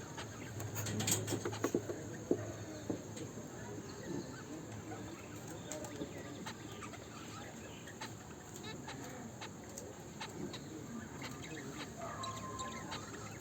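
Pet cockatiels chirping and chattering softly amid scattered clicks and scratches, busiest about one to three seconds in.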